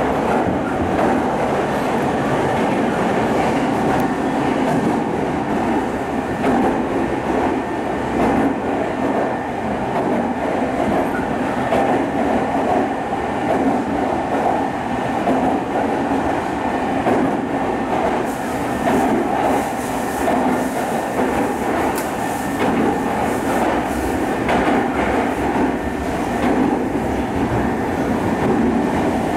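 Inside a JR East E217-series commuter train running at speed through an underground tunnel and passing stations without stopping: a steady loud rumble of wheels and traction motors, with scattered sharp clicks from about two-thirds of the way through.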